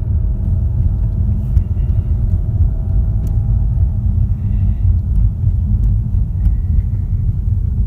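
Road and tyre noise in the cabin of a moving 2015 Ford Mustang 2.3 EcoBoost: a steady low rumble with a faint hum above it. The owner suspects a bad wheel bearing or axle behind the hum.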